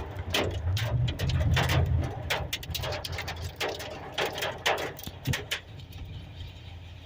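Hailstones striking a hard surface in irregular sharp clacks, several a second, with a low rumble over the first two and a half seconds.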